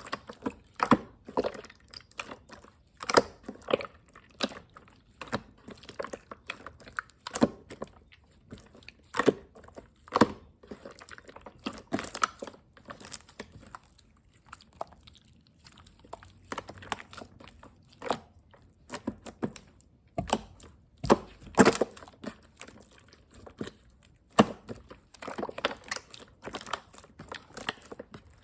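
Clear slime being squished and pressed by hand, making irregular sticky clicks and pops, about one or two a second.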